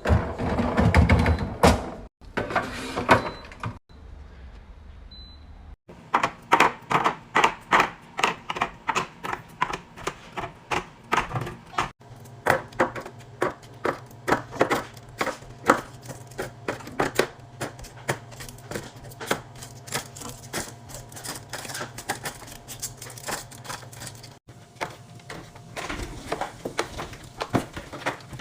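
Rapid, irregular taps, clicks and knocks of containers being handled and set down while a fridge is restocked and organized.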